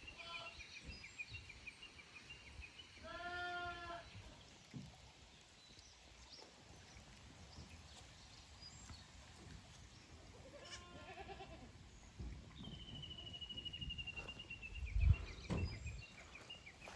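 Goats bleating twice, a wavering call about three seconds in and another about eleven seconds in. A bird's fast, slightly falling trill repeats in the background, and there are a few low thumps near the end.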